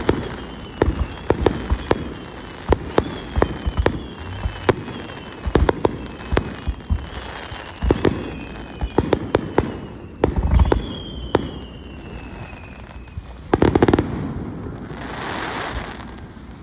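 Fireworks display: a rapid series of sharp bangs from bursting shells, with repeated falling whistles over them. The bangs stop about fourteen seconds in, followed by a short hiss.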